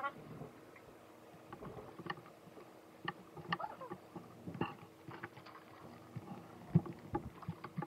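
Irregular light clicks and knocks of plastic as the highlighting bleach powder and developer are mixed, with one sharper knock near the end.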